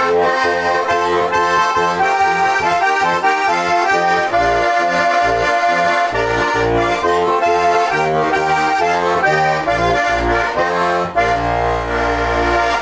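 Žúbor heligonka, a diatonic button accordion in F/B♭ with four-voice Dixi brass reeds, playing a folk tune: a moving melody over short pulsing bass notes, closing on a long held chord near the end.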